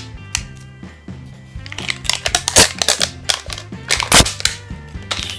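Background music with steady tones, over the crackling and crinkling of an LOL Surprise ball's wrapping as its first layer is peeled off by hand. The crackles come in clusters, loudest about halfway through and about four seconds in.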